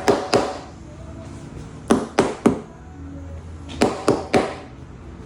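Knocks on a Continental XC7 tyre fitted with sound-absorbing foam, coming in quick sets of two or three, each with a short ring after it. The knocks are a test of how well the foam deadens the tyre.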